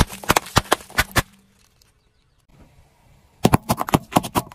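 Car tyre crushing small brittle objects on asphalt: a quick run of sharp cracks and crunches over the first second, a pause, then another cluster of cracks about three and a half seconds in.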